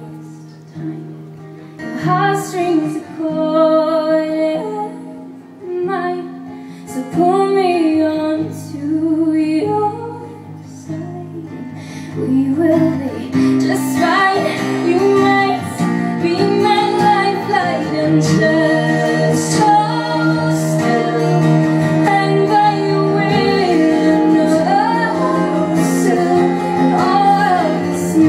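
Live acoustic song: a woman singing over acoustic guitar. The accompaniment grows fuller and louder about thirteen seconds in.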